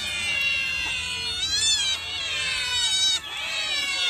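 A large group of cats meowing all at once, many high calls overlapping each other, with a brief lull about three seconds in.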